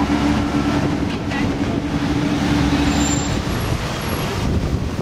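Street traffic with a car engine running at low speed, a steady low hum that stops about three and a half seconds in. After that only an even rush of wind noise is left.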